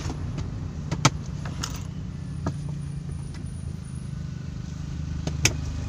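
Daihatsu Terios campervan driving, heard from inside the cabin: a steady low engine and road drone, with a few sharp clicks and rattles, one about a second in and the loudest near the end.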